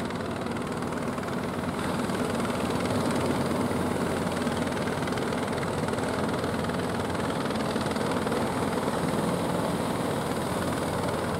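Fishing boat engine running steadily under a wash of surf and wind noise, getting a little louder about two seconds in.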